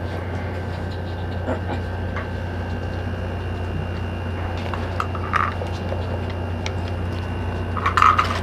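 Small plastic items being handled on a table, giving a few light clicks and rustles, the loudest about eight seconds in, over a steady low hum.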